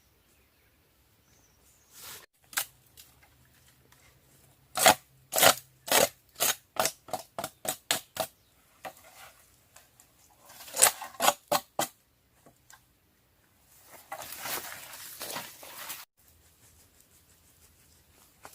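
A run of sharp clicks or knocks, about three a second for several seconds, then another short cluster, followed by about two seconds of scraping, rustling noise.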